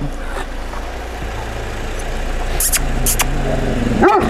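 A vehicle engine idling steadily, with a short dog bark near the end.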